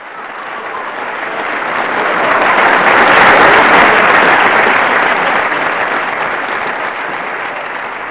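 Audience applause, swelling up from nothing to a peak about three seconds in, then easing off a little.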